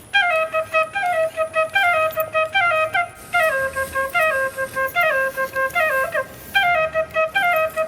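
Intro music: a solo flute playing a short melody of quick stepped notes in repeating phrases.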